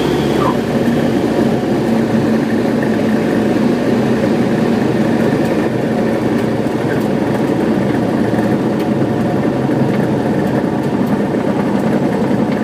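A Van's RV-7A single-engine propeller plane's piston engine running at idle, heard from inside the cockpit, a steady drone as the plane rolls out along the runway after landing. A brief falling squeak comes about half a second in.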